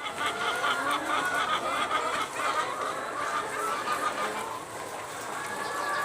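A flock of chickens in a poultry house calling together: a dense, steady chorus of many short, overlapping clucks and calls.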